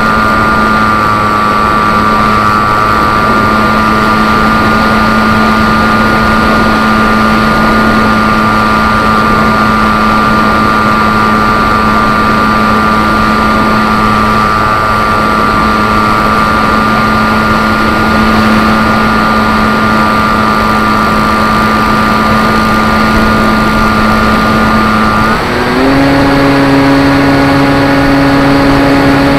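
Electric brushless motor and propeller of a Zeta Phantom FX-61 flying wing, heard from a hard-mounted onboard camera. It runs steadily at part throttle, a constant whine over rushing wind. Near the end its pitch steps up as the throttle is raised.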